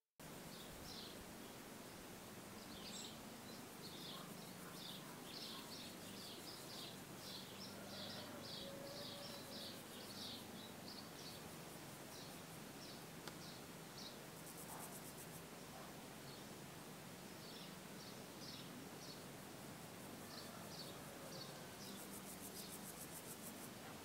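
Faint outdoor ambience: a steady hiss with runs of quick, high chirps that come and go, and twice a brief, very high buzz.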